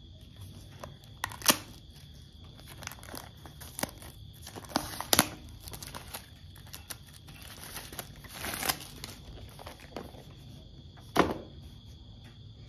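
Plastic shrink-wrap on an Apple Watch SE box crinkling and crackling as the box is handled and set down. There are several sharp crackles and taps, the loudest about a second and a half in and again near the end.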